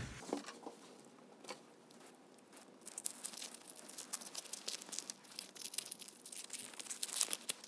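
Waxed paper and aluminium-foil layers of an old paper capacitor's wound element crackling and rustling as they are peeled apart by hand. It is faint at first, with a few light ticks, and becomes a dense crackle from about three seconds in.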